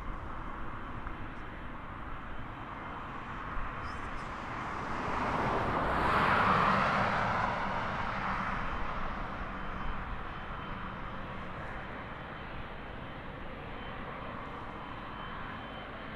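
Jet engines of a Boeing 777 freighter (twin GE90s) running at taxi power, a steady rushing noise that swells about four seconds in, peaks around six seconds and fades back, with a faint thin whine in the later seconds.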